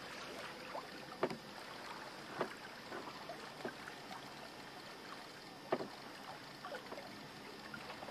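Water lapping and splashing against a small sailing yacht's hull under way, over a steady hiss, with a few sharper splashes, the loudest about six seconds in.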